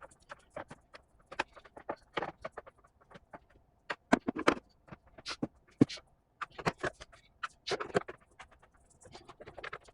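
Irregular clicks and knocks of a battery booster pack's plastic housing being handled and fitted back together, busiest in the middle.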